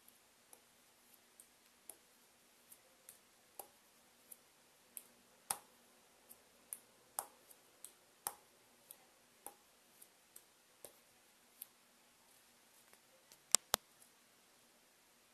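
Ping-pong ball bouncing on a table tennis paddle faced with DHS Hurricane 3 Neo rubber: light clicks about two a second, uneven in strength. Near the end come two sharper, louder clicks close together.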